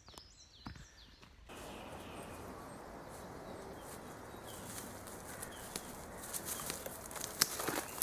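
A bird singing short, falling whistled phrases. About a second and a half in, it gives way abruptly to a steady rushing hiss. Footsteps crunching on the woodland track come through the hiss and grow louder and more frequent near the end.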